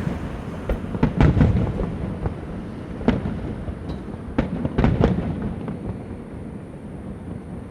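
Fireworks going off: a series of sharp bangs, a cluster about a second in and another around five seconds in, each followed by a low rumbling echo, with the rumble dying away near the end.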